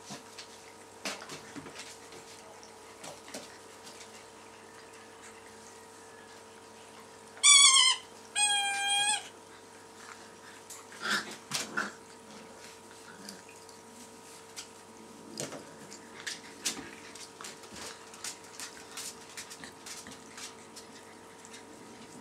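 Labrador puppies at play: two loud, high-pitched squeals in quick succession about a third of the way in, followed by scattered light scuffling and clicks.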